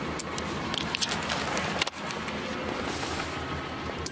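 Hands working the rear-pillar courtesy lamp switch and trim inside the car: a few light clicks and knocks over a steady background hum.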